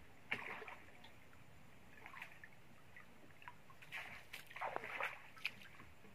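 Scattered splashes and sloshing of river water beside a small wooden boat as a set fishing line is pulled from the water among reeds, a few at a time, loudest about four to five seconds in.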